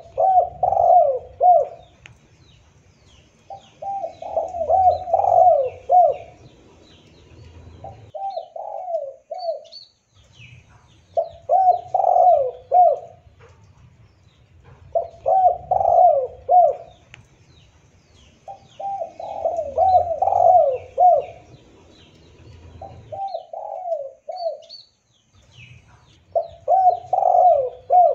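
Spotted dove (tekukur) cooing in repeated phrases of several coos each, about eight phrases separated by short pauses. Faint high chirps of small birds run behind it.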